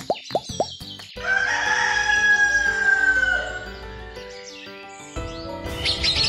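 A few quick rising plop sound effects, then a rooster crowing once, with a long falling call, over light background music.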